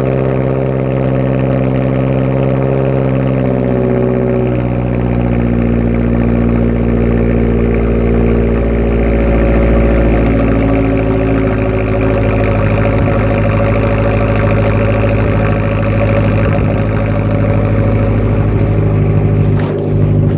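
2007 Mazdaspeed 6's turbocharged 2.3-litre four-cylinder engine idling fast after a cold start, the idle dropping a little about four seconds in and then holding steady.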